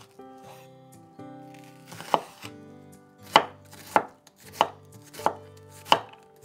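Chef's knife mincing onion on a wooden cutting board: sharp knocks of the blade striking the board. There is one cut about two seconds in, then a steady run of cuts about every half-second from around the middle.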